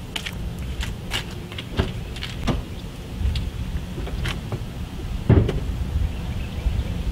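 Scattered clicks and knocks of someone walking up to and handling a car, with jangling keys and a door being worked, and a loud low thump about five seconds in.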